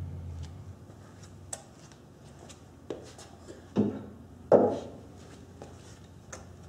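Tools and small metal regulator parts being handled and set down: a few separate knocks and clunks, the loudest about four and a half seconds in, over a faint steady low hum.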